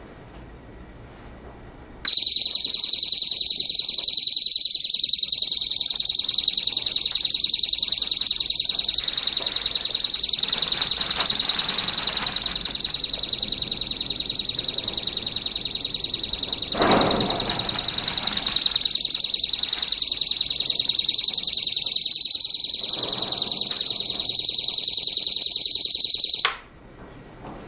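Electronic alarm buzzer sounding a loud, shrill continuous tone with a fast rapid warble, switched on about two seconds in and cut off shortly before the end, used as the sound source in a soundproofing test of cellulose insulation.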